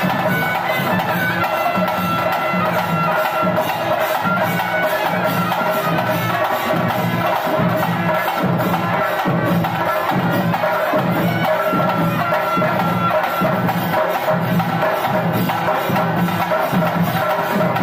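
Live traditional temple festival music: drums and other percussion beat a steady rhythm, with a wind instrument holding a melody over it.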